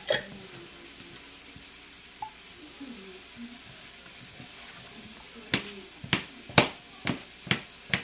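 Kitchen knife chopping through a dill pickle onto a plastic cutting board: about six sharp knocks, roughly two a second, in the second half. Under them, a steady sizzle of steak frying in a pan.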